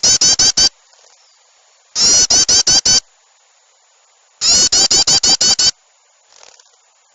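Bird-lure recording of yellow-vented bulbul (trucukan) chattering: loud bursts of quick, harsh notes, about eight a second, repeating roughly every two seconds. Faint small-bird chirps come in the gaps between bursts.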